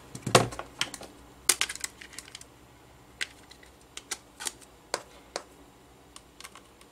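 Irregular sharp plastic clicks and taps, the loudest near the start and about a second and a half in. They come from a 2.5-inch laptop hard drive being fitted into a clear plastic USB enclosure and its USB cable being plugged in.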